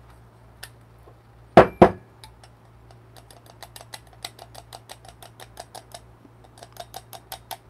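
Two sharp clacks about one and a half seconds in, then, from about three seconds in, a long run of light, fast taps, several a second, as the ROK grinder's stainless grounds cup is tapped over a dosing cup to knock the ground coffee out.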